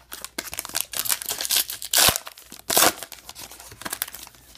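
A trading card pack wrapper being torn open and crinkled, with louder rips about two seconds and three seconds in.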